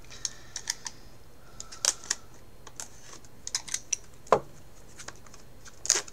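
Plastic Raspberry Pi case turned over in the hands: scattered light clicks and taps of hard plastic, with one louder click and thud about four seconds in.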